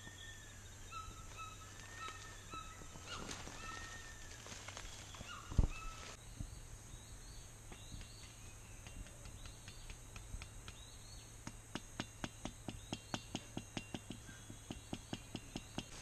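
Rainforest ambience: birds repeat short arched whistled calls through the first few seconds over a steady high insect drone. A single dull thump comes about five and a half seconds in. In the second half, footsteps crunch through dry leaf litter in a quick regular run, about three a second.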